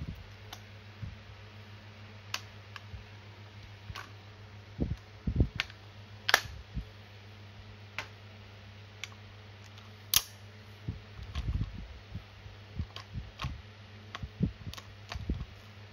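Toy SPAS-12 shotgun's folding stock being handled: scattered clicks and knocks, with two sharp clicks about six and ten seconds in. A low steady hum runs underneath.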